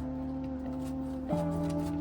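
Soft background music: sustained held notes, changing chord about a second and a half in.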